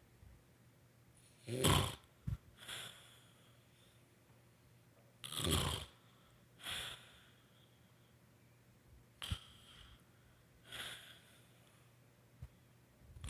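A woman snoring in her sleep: two loud snores about four seconds apart, each followed by a softer breath out, then quieter breathing toward the end.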